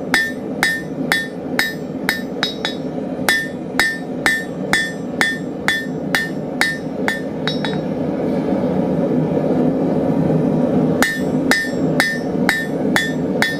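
Hand hammer drawing out a half-inch square bar on an anvil: a steady run of ringing blows, two or three a second, then a pause of about three seconds past the middle before the blows resume. A steady rushing noise runs underneath.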